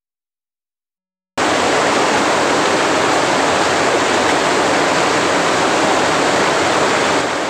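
Silent for about the first second and a half, then the steady rushing of a small waterfall starts abruptly and runs on loud and even.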